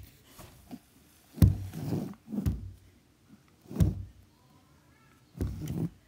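Handling noise: about five dull knocks and thumps at irregular gaps as the recording phone is picked up, moved and set down again on a wooden floor.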